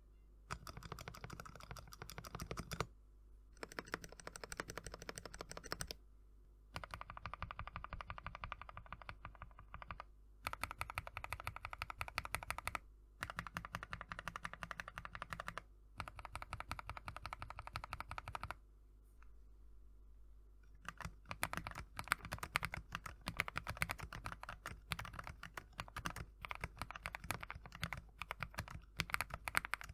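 Fast typing on a mechanical keyboard fitted with JWICK Yellow linear switches, stock with a light factory lube and 65 g springs. The keystrokes come in runs of a few seconds split by short pauses, with a longer pause about two-thirds of the way through.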